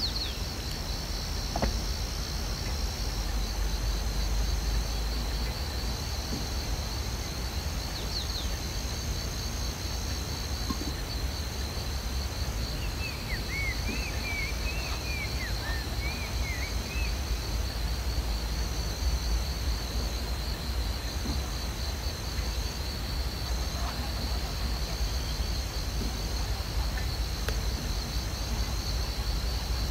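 Insects chirring steadily in a high, pulsing drone over a low rumble, with a bird twittering briefly about halfway through.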